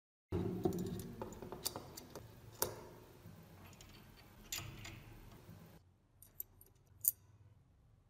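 Small metal gun parts clicking and rattling as the restored pistol is handled, with a few sharper clicks among lighter ones, dying away to faint isolated clicks near the end.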